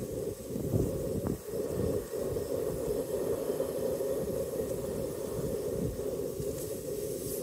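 Gas burner of a camping stove running steadily under a pressure cooker that is heating back up to pressure, with wind buffeting the microphone.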